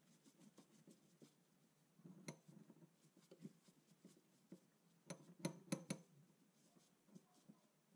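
Quiet, sparse small clicks and taps of metal parts being handled at a surface gauge's steel base, with a sharper click about two seconds in and a quick run of four clicks a little after five seconds.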